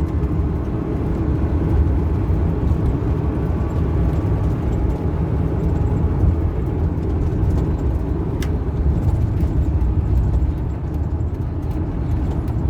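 Car driving along a road: a steady low engine and tyre rumble, with one short sharp tick about eight seconds in.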